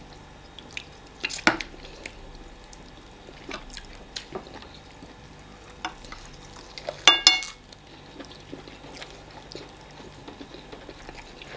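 Close-up eating sounds of a fufu and egusi soup meal: soft, wet squishing and mixing of food, with scattered light clicks and a louder clatter about seven seconds in.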